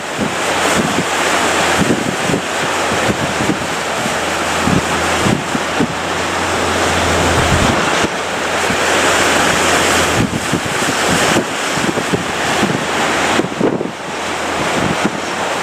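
Strong wind buffeting the microphone over the rush of breaking surf.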